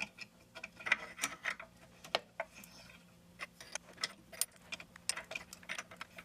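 Light, irregular metallic clicks and taps as a mini milling machine's spindle is turned by hand and its locking pin is fitted.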